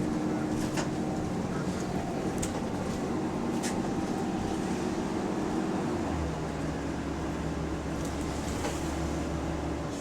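Diesel double-deck bus heard from inside, with the engine and drivetrain running, a steady hum and a few sharp rattles; about six seconds in the pitch drops and a deep drone sets in. The bus is running in limp mode with a faulty turbo.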